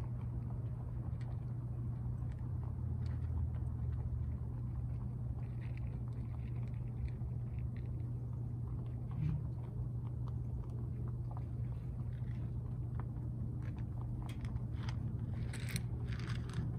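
Rabbits chewing and crunching feed from a bowl: small scattered crunches and clicks, busier near the end, over a steady low rumble.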